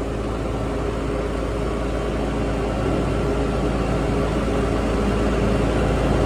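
Vacuum truck's engine running steadily: a low drone with a few held tones, slowly getting a little louder.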